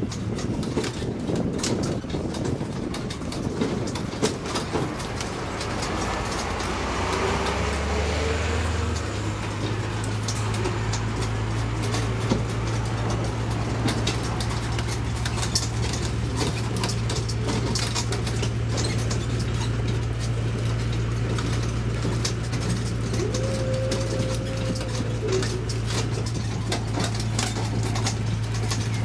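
Tourist road train running through town: a steady low engine hum that settles in about nine seconds in, with light rattles and clicks from the open carriages. A brief rising whine sounds about seven seconds in, and a short held tone near the end.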